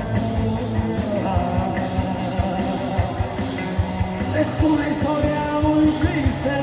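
Live rock band playing with distorted electric guitars, bass guitar and drum kit, with a man singing over it in the second half.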